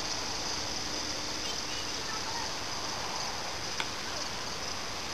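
Steady outdoor background: a high-pitched hiss over a low rustling noise, with a few faint chirps about two seconds in and a single sharp click near the end.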